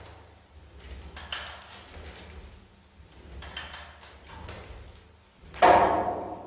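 Ninebot Kickscooter ES-series electric scooter's wheel giving one loud clunk about five and a half seconds in, ringing briefly, with a few faint clicks before it. The knock comes when the throttle or brake trigger is pressed, a fault in the wheel and front suspension that tightening bolts and replacing the bushing and rubbers has not cured.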